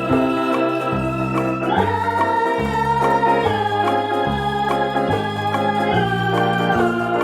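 Instrumental background music: held melody notes over a bass line that changes note about once a second.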